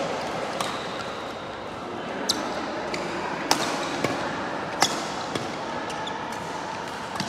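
Badminton rackets hitting a shuttlecock in a rally: about half a dozen sharp smacks, roughly a second apart, over steady background noise.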